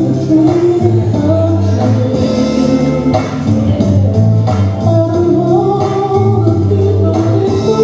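West Coast Swing dance music: a song with a singer over instrumental backing, playing steadily.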